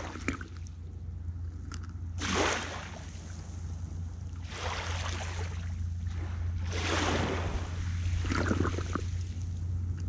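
Small sea waves breaking and washing on a shore, three surges about two seconds apart, with a steady low rumble of wind on the microphone underneath.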